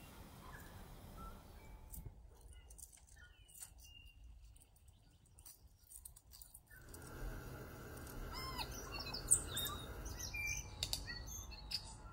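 Several songbirds chirping and whistling, faint at first and busier and louder from about seven seconds in, over a low rumble.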